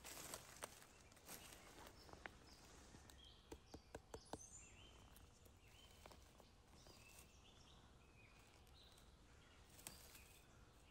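Faint crackling and rustling of dry fallen leaves underfoot and under hand, a few sharp crackles in the first half, with small birds' short high chirps repeating in the background.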